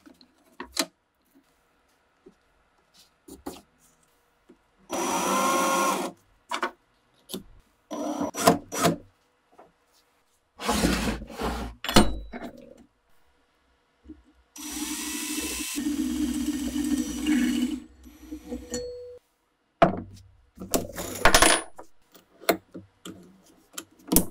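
Gloved hands working at a wooden workbench, making a series of separate knocks and clatters as tools and the axe head are set down and clamped in a bench vise. A DeWalt cordless drill's motor runs briefly twice: once for about a second and a half early on, and once for about three seconds past the middle.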